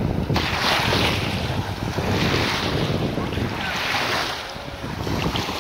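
Small waves washing up onto a gravel shore, each wash swelling and fading about every second and a half to two seconds, with wind buffeting the microphone.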